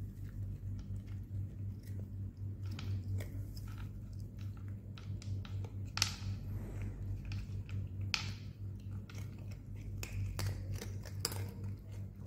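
A cat crunching dry kibble, with irregular crisp crunches and clicks, a few louder ones about halfway through and near the end. A steady low hum runs underneath.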